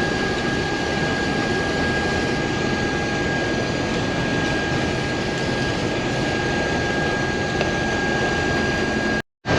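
Case IH 1480 combine running with its separator and feeder house engaged: a steady drone of engine and threshing machinery with a thin, steady whine over it. The sound drops out completely for a moment near the end.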